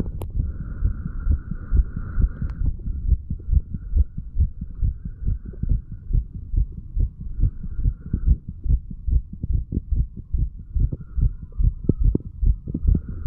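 Heartbeat of a 35-year-old man, recorded at the chest a few hours after heavy drinking: a steady run of regular low thumping beats, with a faint hiss in the background.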